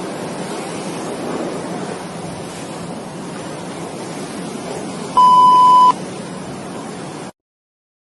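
A steady rushing noise, broken about five seconds in by a single loud electronic beep of under a second at one high pitch. The noise stops abruptly near the end.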